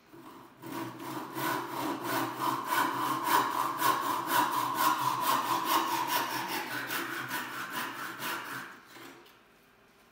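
BT&C Hardware Store Saw, a short handsaw, cutting through a board with a steady run of back-and-forth strokes. The strokes start about half a second in and stop about a second before the end.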